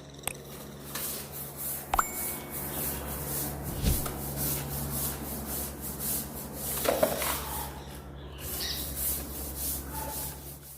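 Stiff broom bristles scrubbing a wet, soapy floor in quick back-and-forth strokes to lift stubborn ground-in dirt. There is a short pause near eight seconds in, and then the strokes resume.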